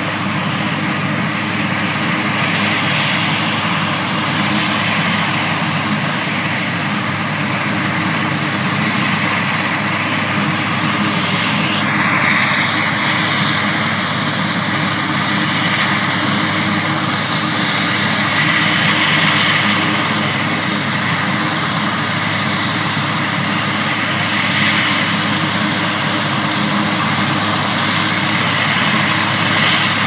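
Eurocopter AS332 Super Puma helicopter running on the ground with its rotor turning: steady noise from its twin turboshaft engines and rotor. About twelve seconds in, a new whine sweeps in and holds steady at a higher pitch.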